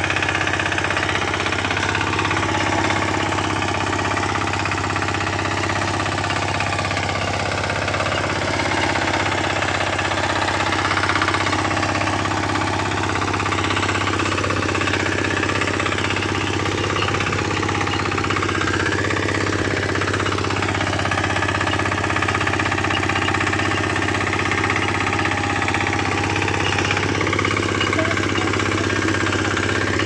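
Walk-behind rotary power tiller's engine running steadily under load as its tines churn the soil, with an even, unbroken drone.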